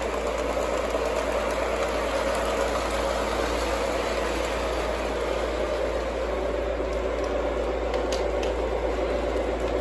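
O-gauge model trains running on three-rail FasTrack: a steady whirr and hum of the locomotives' motors and wheels on the track.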